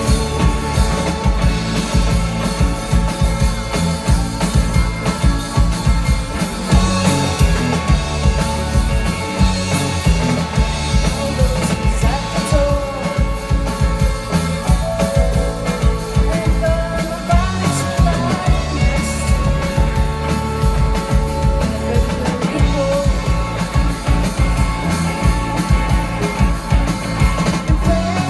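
Indie rock band playing live: drums, bass, electric guitars and keyboard, recorded on a phone from within the crowd.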